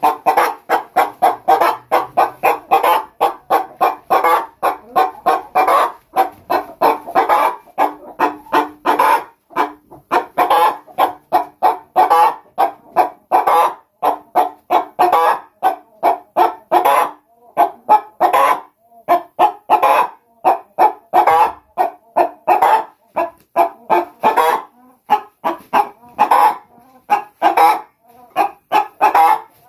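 Hens clucking and cackling in a fast, continuous string of short calls, several a second, thinning out with brief pauses in the second half. This is the sort of cackle laying hens make around laying an egg.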